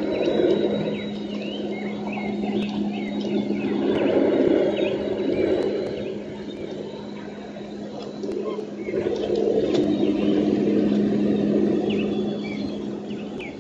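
Many short, high bird chirps over a steady low hum and a rushing noise that swells and fades every few seconds.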